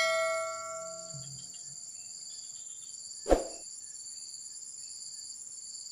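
Steady high-pitched chorus of insects such as crickets. A ringing tone fades out over the first second, and a single short knock comes about three seconds in.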